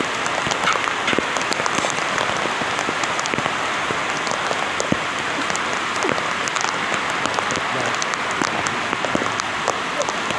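Heavy rain falling steadily, a dense even hiss of drops with many sharp individual drop impacts close by.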